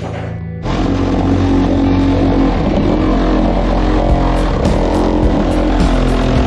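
Background music starting abruptly just over half a second in, a full, dense track with a steady beat.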